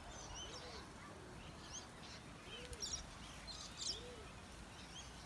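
A flock of birds chirping faintly and scattered, with short high calls. Under them, a lower arched call repeats about every second and a half.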